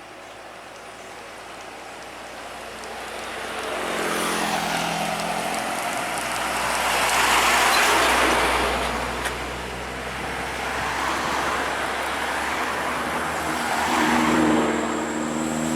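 Road traffic on a mountain road: vehicle engine and tyre noise build up and are loudest about eight seconds in as a vehicle passes close. A steady engine hum shows a few seconds in and again near the end.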